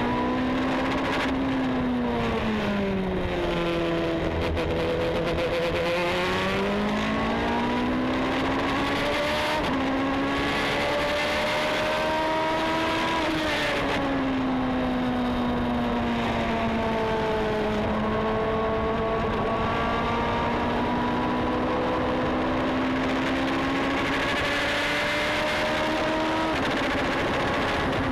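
Indy two-seater race car's engine heard onboard at speed. Its pitch sweeps smoothly down and back up over several seconds at a time, and drops suddenly about halfway and again near the end, as at upshifts.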